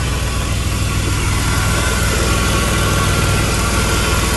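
Turbocharged Dodge Intrepid engine idling steadily.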